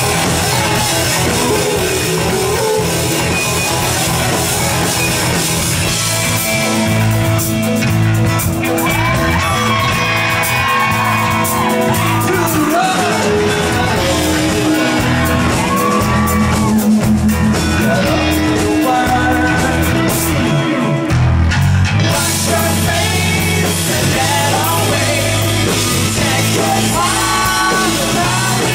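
A rock band playing live and loud, with drum kit, electric guitar and bass under sung vocals, echoing in a club hall.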